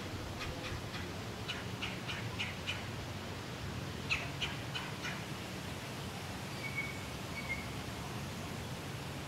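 Short, sharp chirping calls from a small animal, in three quick runs of about three a second during the first half, then two faint short whistles.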